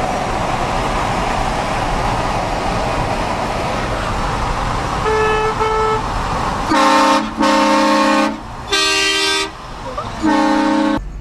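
Vehicle-mounted train horn blasting four times in the second half, each blast a loud multi-tone chord lasting about half a second to a second. It is preceded by a steady rushing noise and two short, fainter toots about five seconds in.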